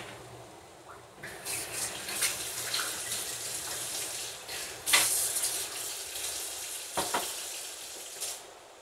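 Kitchen tap running water for several seconds, turned on about a second in and off near the end, with a few sharp knocks on top.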